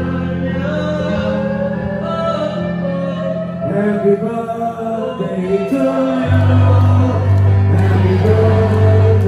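Live rock band playing on stage: a male lead singer singing into a microphone over electric guitar and sustained bass notes. About six seconds in the bass drops to a deeper note and the band gets louder.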